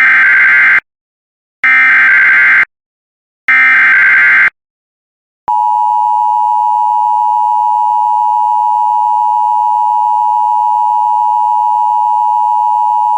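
Emergency Alert System SAME header: three short bursts of buzzing digital data tones, each about a second long, encoding a Severe Thunderstorm Warning. Then the two-tone EAS attention signal starts about five seconds in and holds steady.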